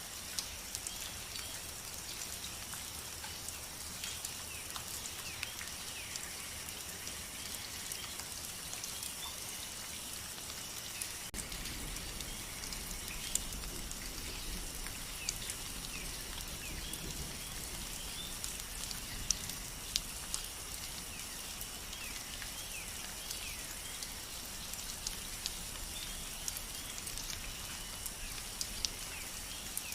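Steady rain with scattered drops ticking sharply on a surface, and faint high chirps in the background. A low rumble comes in about a third of the way through.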